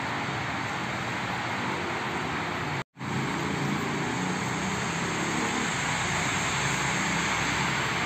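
Steady background rumble of a busy elevated MRT station, with an instant of silence just under three seconds in where the recording cuts.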